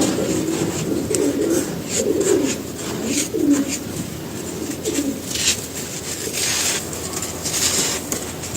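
Dry sand-cement being crumbled by hand, with crisp crackles and sandy crunches that come thicker from about five seconds in. A pigeon coos repeatedly in the background through the first half.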